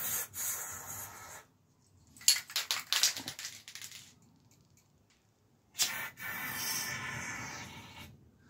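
Aerosol can of wax oil spraying into bike frame tubes in three hissing bursts, the middle one sputtering and spitting.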